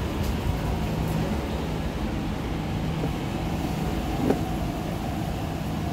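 Steady electric hum of an MTR East Rail Line R-Train standing at the platform, with one short click about four seconds in.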